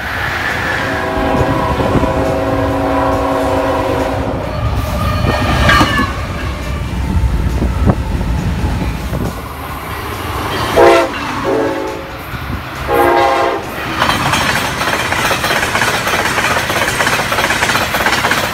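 Electric passenger trains at stations: a train horn held for about three seconds, later two short horn blasts, then the loud rushing clatter of steel wheels as a passenger coach passes close by.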